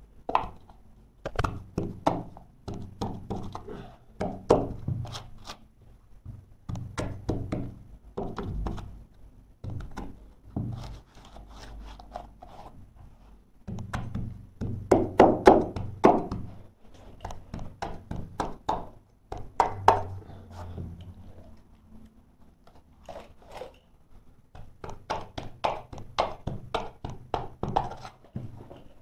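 Carpet-fitting hand tools working a carpet edge along the skirting board as it is trimmed with a knife and pressed in with a plastic bolster: a run of irregular dull thunks, taps and scrapes, with a louder cluster about halfway through.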